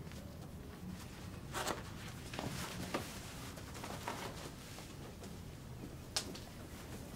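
Clothing rustling and small knocks as a person gets dressed, over a low steady room hum. There are about five brief rustles and clicks, and the sharpest comes near the end.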